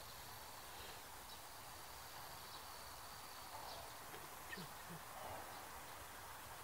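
Faint outdoor wetland ambience: a steady hiss with a thin high insect-like whine and a few short, distant bird chirps, one dropping in pitch about halfway through.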